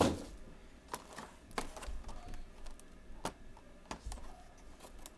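Clear plastic clamshell packaging tray being handled and opened, giving a handful of sharp plastic clicks and taps. The loudest comes right at the start.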